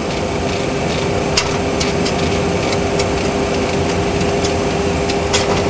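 Steady rushing flight-deck noise from a Boeing 737 Classic simulator with a faint steady hum, and a few light clicks from the autopilot altitude selector knob as it is turned down to 10,000 feet.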